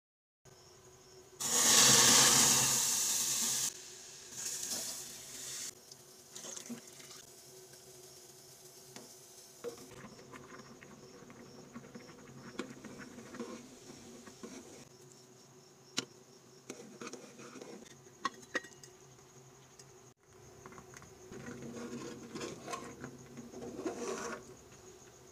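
Water rushing and splashing for about two seconds near the start as the soaked barley is washed. Then a pot of grains and lentils boils on a gas stove, a steel spoon clinks sharply against the aluminium pot a few times, and the pot is stirred near the end. A faint steady high whine runs underneath.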